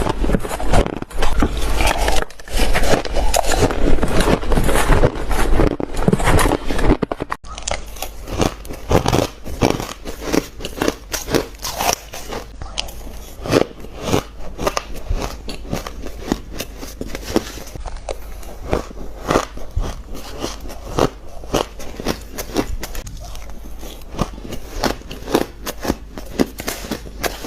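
Shaved ice being bitten and crunched by the spoonful, close up. A dense run of crunching breaks off suddenly about seven seconds in, and is followed by sharper, more widely spaced crackling crunches.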